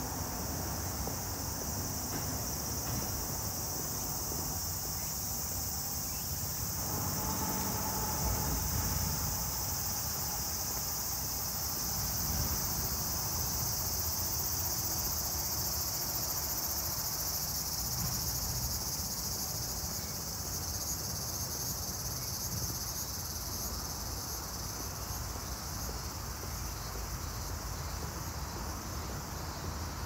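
A steady, high-pitched chorus of insects shrilling from the vegetation, with a low rumble underneath.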